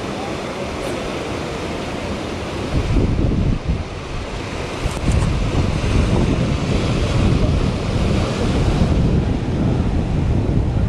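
Wind buffeting the microphone over the steady wash of sea waves; the wind gusts harder about three seconds in.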